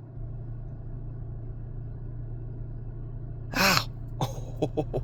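Steady low hum of a car cabin, with a short, loud human voice sound, a cough or gasp-like burst, about three and a half seconds in, followed by a few brief voice sounds near the end.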